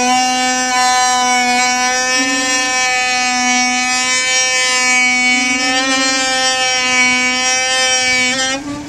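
Car's rear brakes making a loud, steady squeal with many overtones, its pitch wavering slightly, cutting off near the end. This is the recurring rear brake noise that shows up when braking down the driveway.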